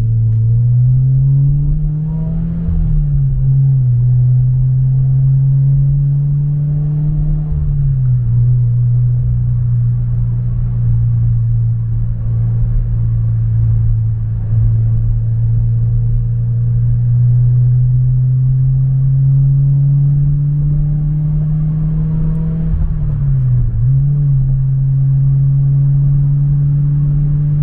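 Subaru BRZ's flat-four exhaust through an Invidia N1 catback, heard from inside the cabin while cruising: a loud, deep, steady drone that fills the cabin with bass. The engine note swells and falls back a couple of seconds in, drops around eight seconds, climbs slowly after that, and dips briefly near the end.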